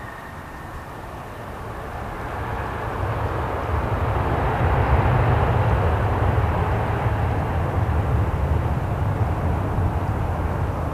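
Boeing 737-400's CFM56 jet engines on the landing roll, a distant rumbling jet noise that swells over the first few seconds and then holds loud and steady.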